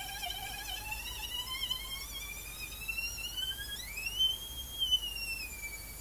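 Homemade pulse motor's coils giving a thin, mosquito-like whine that climbs slowly in pitch, jumps sharply higher about four seconds in, then drops back to a steady tone. This resonance noise is what the builder takes for the two coils resonating with each other.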